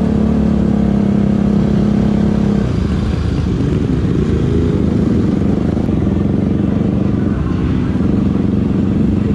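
Supermoto motorcycle engine running under way along a street, with other motorcycles close by. It holds steady revs for the first couple of seconds, then the pitch wavers as the throttle changes.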